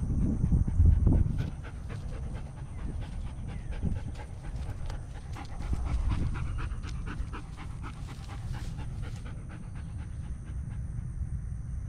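German Shepherd panting with its mouth open, quick repeated breaths, over a low rumble that is loudest about a second in.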